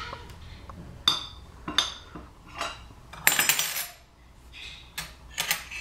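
A spoon and dishes clinking and clattering as a small child stirs and handles them on a kitchen counter: a string of sharp, ringing clinks, the loudest cluster about three seconds in.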